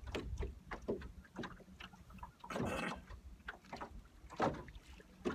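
Choppy lake water lapping against a small aluminum boat's hull in irregular knocks and splashes, over a steady wind rumble on the microphone.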